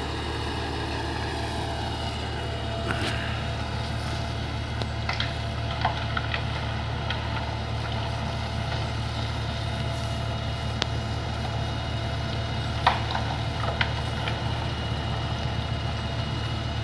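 A vehicle engine idling steadily with a low hum, with a few short knocks and clinks.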